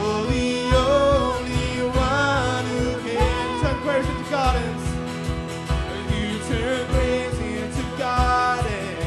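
Worship band music: a wavering melody line over a band with a steady, regular drum beat.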